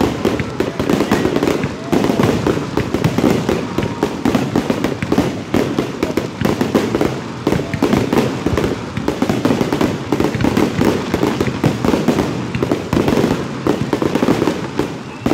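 Aerial firework shells bursting in a rapid barrage, many sharp bangs overlapping with no break between them.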